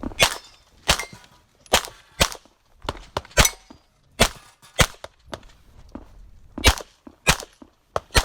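Shots from a 9mm competition pistol fired in quick succession, about one every half second to second, with a pause of over a second in the middle of the string.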